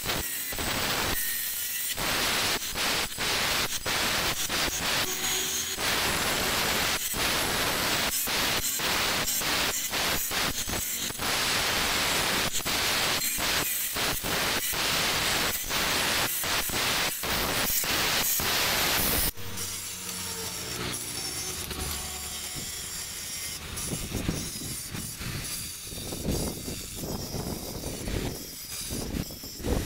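Handheld electric grinder with an abrasive disc grinding and smoothing white stone: a loud, rough, continuous grinding noise with rapid irregular scraping and chatter as the disc is worked over the surface. About nineteen seconds in it cuts off abruptly to quieter, intermittent scraping.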